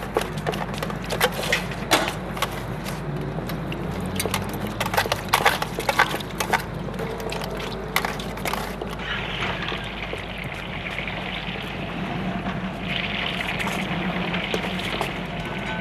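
Sharp clicks and knocks, then from about nine seconds in, water running from a street drinking fountain, over a steady low hum.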